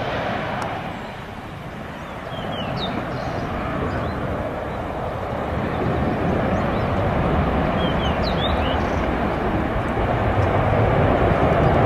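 Jet airliner engines at takeoff power, a steady rumbling roar that grows louder toward the end and then cuts off suddenly. A few brief high chirps sound over it twice.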